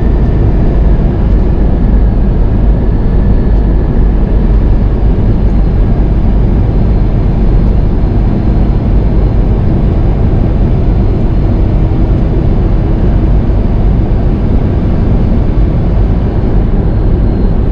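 Steady drone of a semi truck driving at road speed, heard from inside the cab: diesel engine and tyre and road noise.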